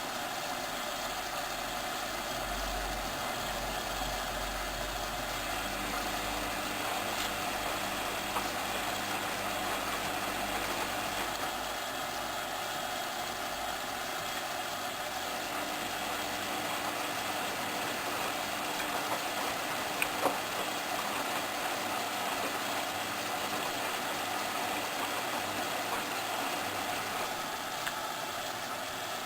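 Hoover Inter@ct front-loading washing machine running, driven by a motor transplanted from a Candy Aliseè, with a steady mechanical noise throughout. A low motor hum comes in for several seconds, stops, then comes back for a longer spell, with two short clicks partway through.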